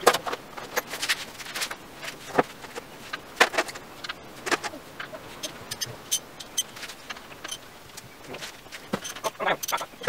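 Hand tools clicking and clinking against metal under a car, irregular sharp taps and knocks with no steady rhythm.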